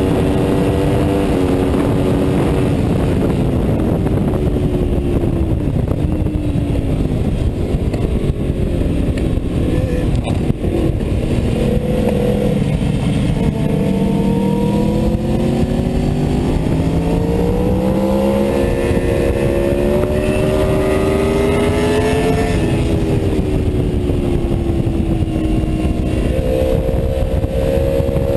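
Aprilia Tuono V4's V4 engine heard from onboard at track speed, over heavy wind rush on the microphone. The engine note falls for the first few seconds, then climbs steadily as the bike accelerates. It drops once at an upshift about two-thirds of the way in, climbs again, and jumps up in pitch near the end as it downshifts.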